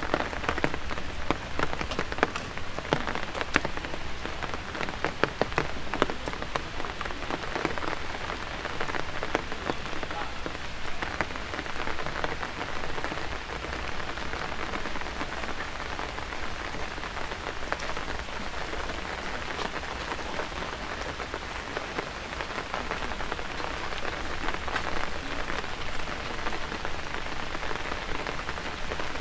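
Steady rain falling on wet paving, with many sharp, close drip hits that are thickest in the first several seconds and thin out after.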